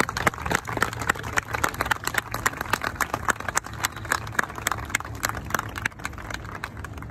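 Audience applauding: many hands clapping irregularly, dying down near the end.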